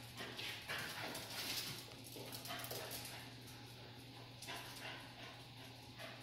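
A dog running around a bare, hard-floored room. Faint, irregular short sounds of its paws and small dog noises come through over a steady low hum.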